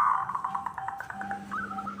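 Zebra dove (perkutut) cooing: a rolling note fading into a rapid run of short staccato notes, then a few quick rising-and-falling coos near the end.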